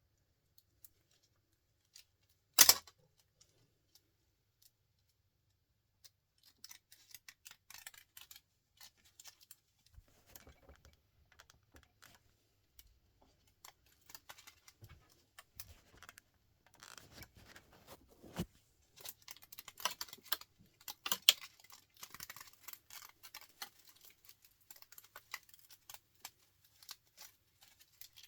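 Hand tools working on small electronic scrap parts: one sharp snap about two and a half seconds in, then a long run of small clicks, snips and scrapes that grows busier in the second half.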